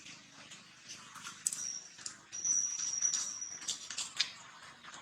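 A thin, high-pitched animal squeal held steadily for about two seconds, starting about a second and a half in, with scattered light clicks and taps around it.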